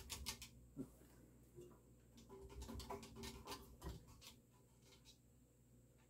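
Faint, irregular clicking and light rattling from a ceiling fan being handled as it is switched off and coasts down, in two short spells with near silence between and after.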